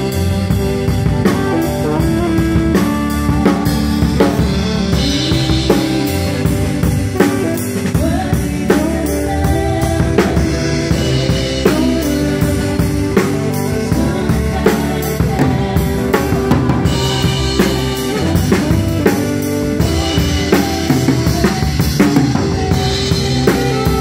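Live band playing through a sound check: a drum kit with kick and snare hits keeps the beat under sustained keys, bass and guitar.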